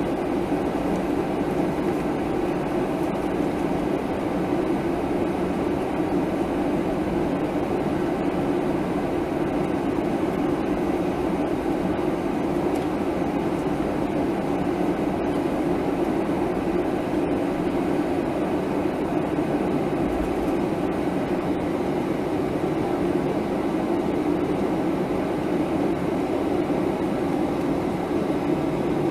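Steady cabin noise of a Boeing 737-800 taxiing, heard from a seat beside the wing: its CFM56-7B turbofans running at low taxi power over the even rumble of the airframe rolling on the taxiway. The sound holds at one level throughout.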